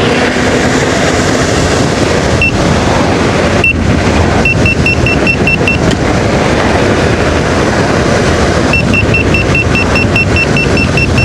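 Loud wind rush over the microphone of a Begode Master Pro electric unicycle ridden at speed, with the wheel's high-pitched alarm beeping. There are two single beeps, then a quick run of beeps about six a second, and near the end a longer run.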